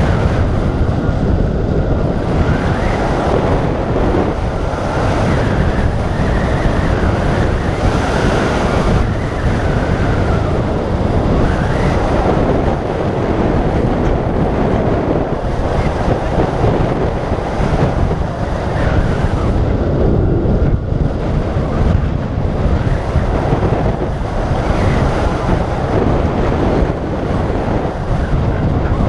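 Loud, steady rush of airflow buffeting the microphone of a camera mounted on a hang glider in flight, as the glider descends low toward landing.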